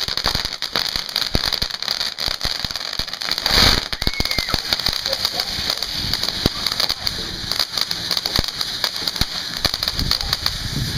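Ground fountain fireworks spraying sparks with a steady hiss and dense crackling throughout, and one louder rushing burst about three and a half seconds in.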